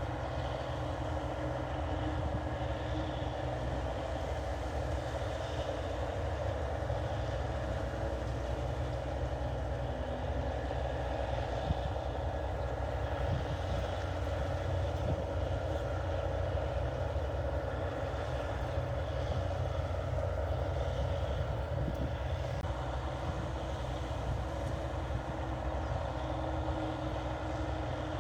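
NH 8080 rice combine harvester running steadily while cutting and threshing rice: a constant engine and machinery drone that holds the same level throughout.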